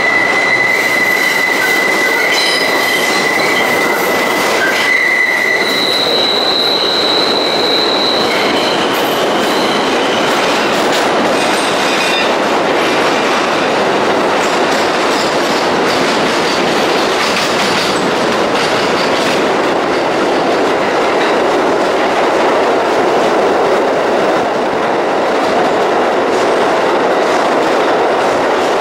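New York City subway 6 train running through a tunnel, heard from inside the car: a steady, loud rumble and rush of steel wheels on rail. A high wheel squeal sounds for the first several seconds, jumps to a higher pitch about six seconds in, and dies away by about eight seconds.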